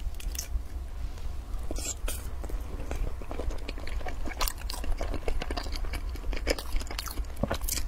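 Close-miked chewing of sticky glutinous-rice zongzi: scattered wet mouth clicks and smacks, with a steady low hum underneath.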